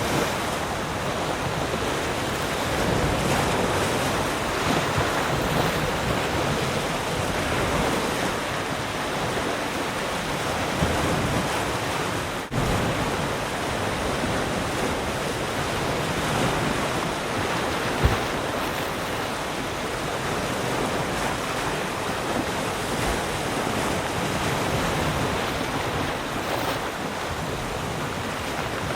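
Ocean surf: waves breaking and washing continuously, swelling and easing gently, with a momentary drop in sound about halfway through.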